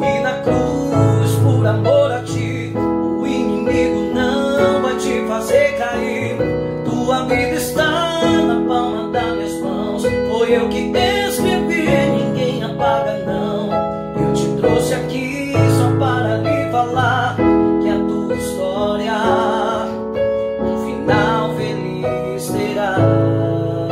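Keyboard played with a piano sound, sustained chords changing every second or two, with a man singing a slow melody over it and holding notes with vibrato.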